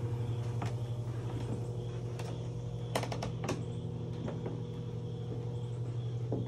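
Steady low hum of a hot tub's pump running its jets, with a few scattered footsteps or knocks on the wooden deck.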